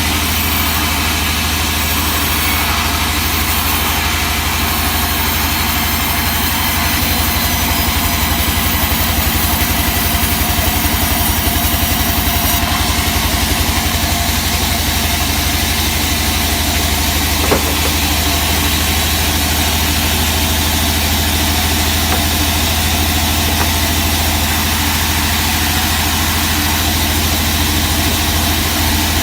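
Sawmill machinery running steadily with a constant low engine hum and a hiss reaching high up, and one sharp click about two-thirds of the way through.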